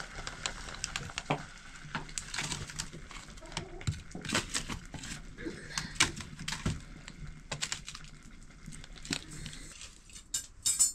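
Irregular clicks and knocks of kitchen work, utensils and pots being handled, with a quick louder clatter near the end.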